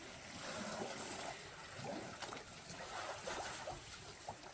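Faint, irregular water sloshing and trickling from elephants drawing water from a swimming pool with their trunks.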